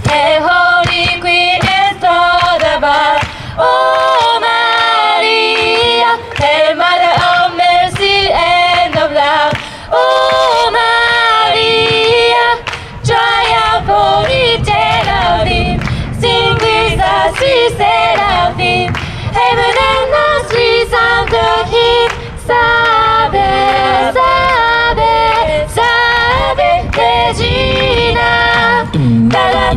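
Small mixed a cappella group, mostly female voices, singing unaccompanied in close harmony through microphones and PA speakers.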